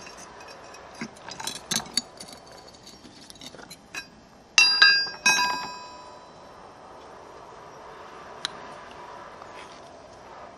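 A steel pry bar clinks and scrapes against the split stone block. Then come two loud, ringing metallic clanks, about four and a half and five seconds in, as the steel tools are set down on the stone.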